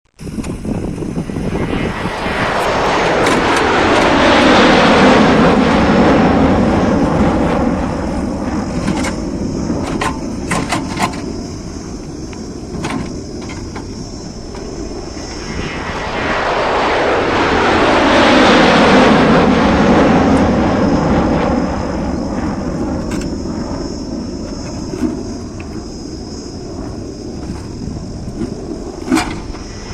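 A heavy vehicle's engine grows louder and fades away twice, about fifteen seconds apart, like two pass-bys, with a few sharp clicks in between.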